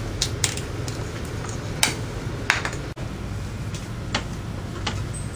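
Sparse light metallic clinks and knocks from hands and tools working at a Harley-Davidson's primary chain and compensator, where a wood block is wedged in the chain and a breaker bar sits on the compensator nut, over a steady low hum.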